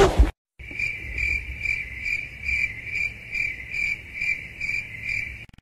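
After a brief loud noise at the very start, a cricket chirps steadily. Its high trill swells in even pulses, a little over two a second, and stops just before the end.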